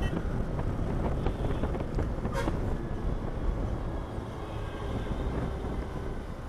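Hero XPulse motorcycle riding along: a steady low engine and road rumble with wind noise on the microphone. A brief sharp sound comes about two and a half seconds in.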